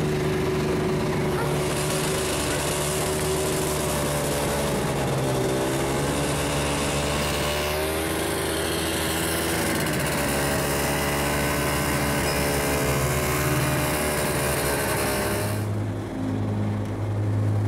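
Snowmobile engine running while riding, its pitch rising and falling again and again with the throttle, over a steady hiss. Near the end the hiss drops away and a lower, steadier hum is left.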